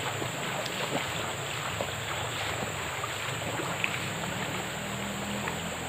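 Forest ambience: a steady high-pitched insect drone over a low rumble, with scattered small ticks and crackles throughout.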